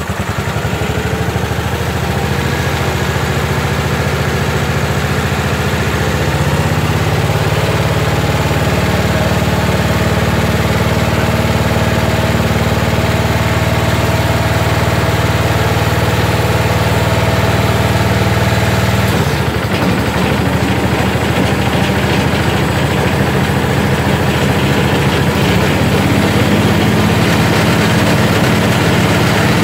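Briggs & Stratton rear engine of a Jacobsen Homelite lawn tractor running steadily at mid throttle, just after a warm start. Its note changes about two-thirds of the way through.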